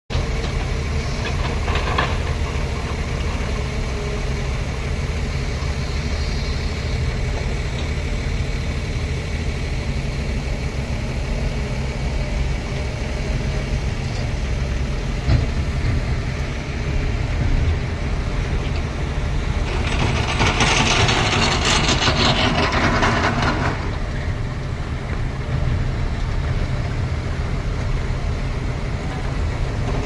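Diesel engines of heavy construction machinery running steadily with a low drone. About two-thirds of the way through, a loud hissing rush comes in for around three seconds and then stops.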